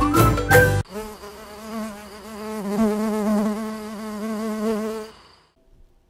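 Music cuts off just under a second in, followed by honeybees buzzing: a steady hum with a gently wavering pitch that fades out about five seconds in.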